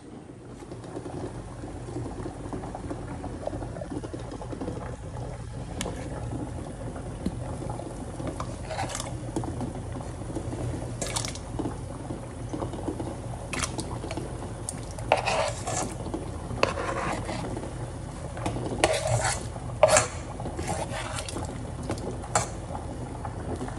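Kitchen handling sounds: chopped vegetables and utensils knocking and scraping against a cutting board and pot in scattered short bursts, over a steady low hum.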